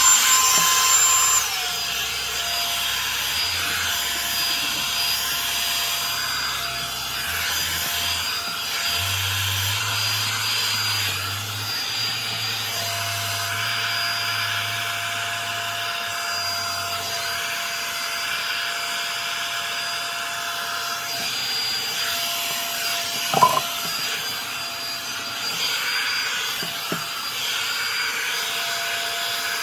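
Revlon One-Step Volumizer hot-air brush running steadily, a motor whine over rushing air. Its pitch steps down about a second and a half in, and there is a brief click near the end.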